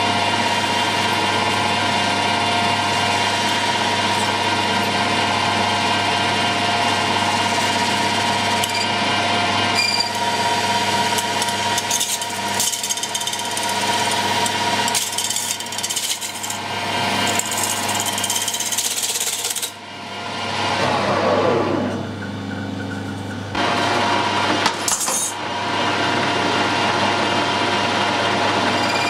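Metal lathe running with a steady whine while the tool takes a facing cut across the end of a spinning workpiece, throwing curling swarf. About twenty seconds in the sound drops briefly and a falling whine follows, before the steady running resumes.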